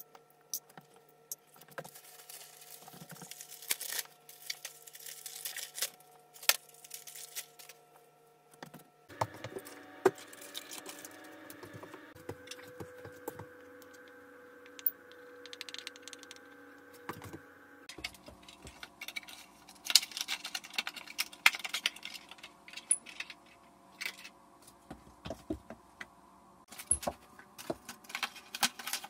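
Hands handling packets of press-on nails and a metal wire basket rack: scattered light clicks, taps and small metallic clinks. A faint steady hum runs underneath.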